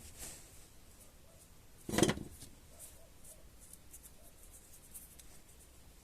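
Hands handling small parts during chainsaw starter repair work: one short clatter about two seconds in, then faint light ticks and rubbing.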